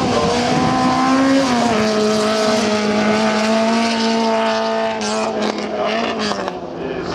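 Historic open-wheel single-seater racing car's engine running hard at high revs. It drops in pitch once about a second and a half in as it changes up a gear, then holds a steady note. Near the end the note thins out, with a few sharp crackles.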